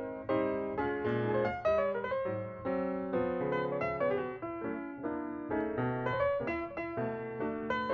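Background piano music: a steady run of melodic notes.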